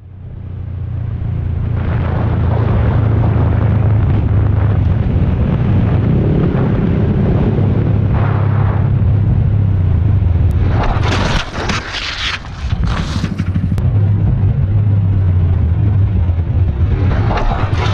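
Motorcycle engine running steadily while riding, with wind rush on a helmet-mounted microphone. The sound drops briefly about two-thirds of the way through, then picks up again.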